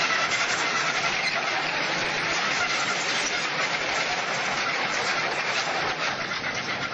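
Tracked armoured vehicle running, a steady, noisy engine-and-track rumble with fine crackle through it.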